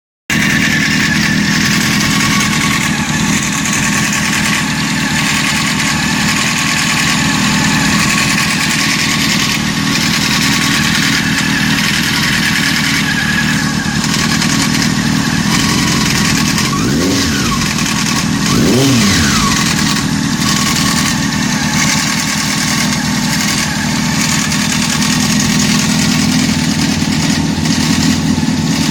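Honda CBR600 F4's inline-four engine idling steadily, with the noise that the owner takes for timing chain noise. It is revved twice briefly about two-thirds of the way through.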